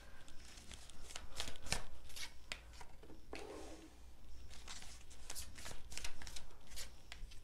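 Tarot cards being drawn off a deck and laid down on a cloth-covered table: a run of light card flicks and snaps, with a few softer brushing sounds in between.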